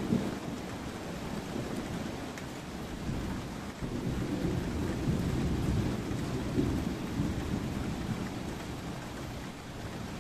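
Thunder rumbling over steady rain: a rumble at the very start, then a longer rolling rumble from about four seconds in that dies away before the end.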